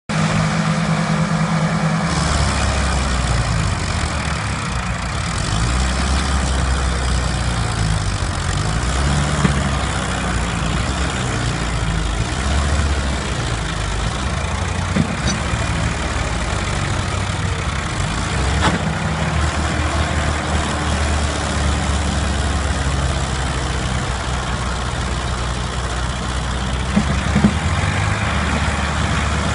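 Two diesel tractor engines, a Farmatrac 60 and a Mahindra Arjun, running hard under heavy load as the tractors pull against each other in a tug-of-war. The engine note shifts up and down as they strain, with a few short knocks.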